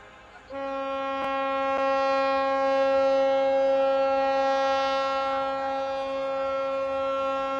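A ship's horn sounding one long, steady blast that starts suddenly half a second in and holds a single pitch for about seven seconds. Two faint cracks come just after it starts.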